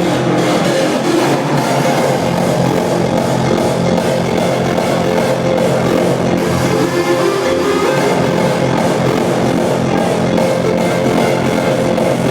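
Loud hardstyle dance music from a DJ set, with sustained distorted synth leads over the beat.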